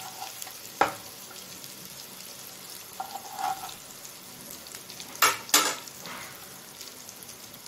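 Oil sizzling steadily in a pan around scored boiled eggs frying in a spice masala. A metal slotted spoon scrapes and knocks against the pan a few times, loudest twice in quick succession a little after five seconds in.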